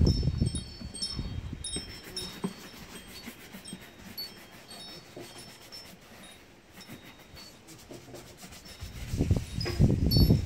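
A hand shoe brush rubbing over a leather riding boot, loudest at the start and again near the end. High tinkling notes ring out here and there throughout.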